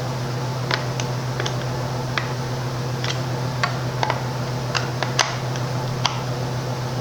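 Irregular light clicks and taps, about a dozen, of small chainsaw parts and hand tools being handled, over a steady low hum.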